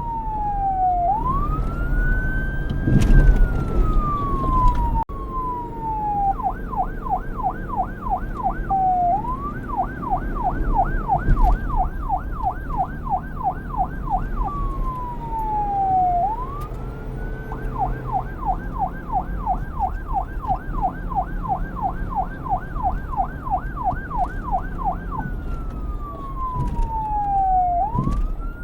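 Electronic police siren switching back and forth between a slow wail, whose pitch falls and rises in long sweeps, and a fast yelp of about four warbles a second. It runs over a low rumble.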